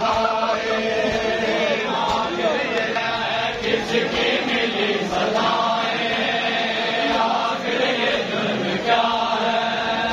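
A large crowd of men chanting a noha together in a Shia mourning procession, many voices singing the same line, with hand slaps of matam (chest-beating) mixed in.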